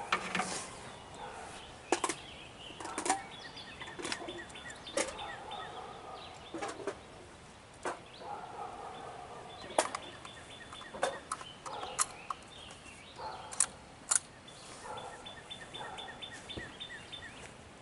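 Birds calling and singing: many short, sharp calls, and three times a trill of rapid, evenly spaced high notes.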